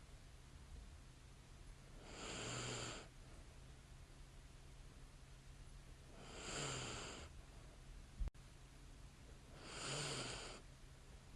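A woman sleeping, breathing slowly with light snores: three breaths about four seconds apart, each lasting about a second with a faint low rasp. Between the second and third breath comes one short sharp click.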